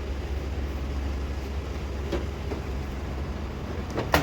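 Steady low machine hum with a faint even hiss, a couple of light taps midway and a sharp click near the end.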